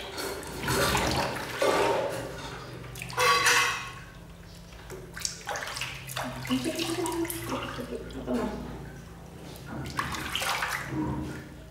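Water splashing and sloshing in a large plastic washbasin as hands scoop it over a baby monkey being bathed, in uneven splashes that come and go.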